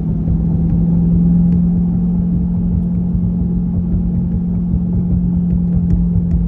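Corvette C8's V8 engine running at a steady speed while driving: a constant low drone over a rumble.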